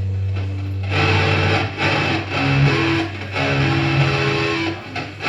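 Distorted electric guitar playing chords through an amplifier during a band sound check: a held low note at first, then a riff in short phrases with brief stops between them.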